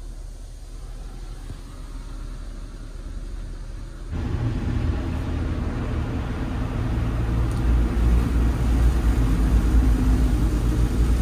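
Automatic conveyor car wash heard from inside the car's cabin: a low rumble, then about four seconds in a much louder rush of water spray and brushes on the body starts and grows louder again near the end.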